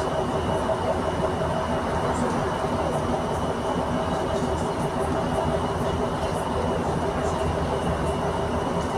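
Cabin noise of a MAN NG313 CNG articulated city bus under way: a steady drivetrain hum and road rumble with a faint constant whine above it.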